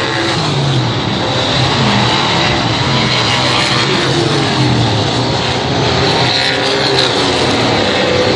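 Race car engine running hard, its pitch rising and falling as the throttle is worked.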